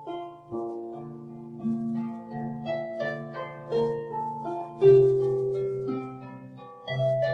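Slow, calm harp music: plucked notes ringing on over low bass notes, with a louder chord about five seconds in.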